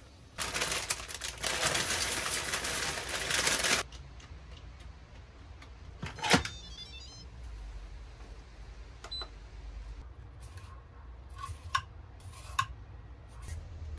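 Dry pasta poured from a plastic bag into an Instant Pot's steel inner pot, a dense rattling for about three seconds. A single sharp clink follows about six seconds in, and near the end a vegetable peeler scrapes a carrot in a few light strokes.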